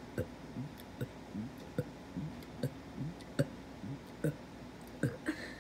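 A person's throat making a rapid string of small, short burps and air gulps, about two or three a second, each a brief low croak with a click at its start.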